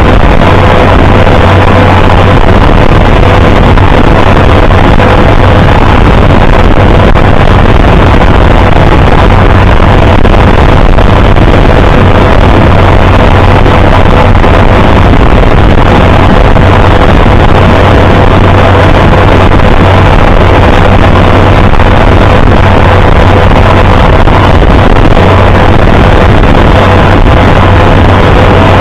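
International Harvester 560 tractor engine running steadily and loud, close to the microphone, a constant low hum with steady higher tones over it.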